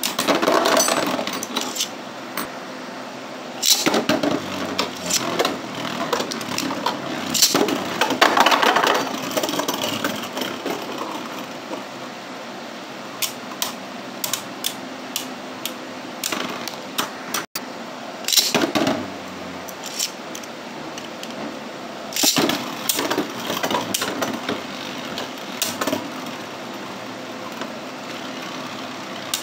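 Two Beyblade Burst tops, Brutal Luinor and Geist Fafnir, whirring as they spin in a clear plastic stadium. They clack and rattle in repeated bursts of collisions against each other and the stadium wall, with quieter spells of steady spinning between.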